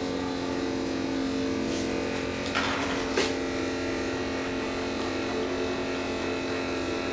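A small pump motor running with a steady hum while used engine oil is pumped out through a hose into a jug. A few light clicks from the hose being handled come about two and a half to three seconds in.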